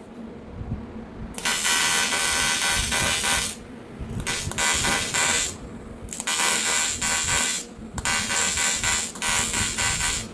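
AC TIG welding arc on aluminium giving a loud electric buzz, struck four times in a row for a second or two each with short pauses between.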